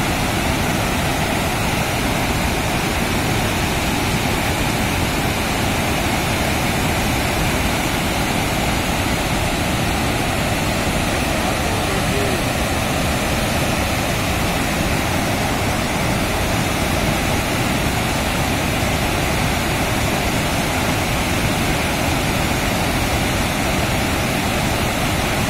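Water pouring through four open dam spillway gates and crashing into the basin below: a loud, steady rush of falling water.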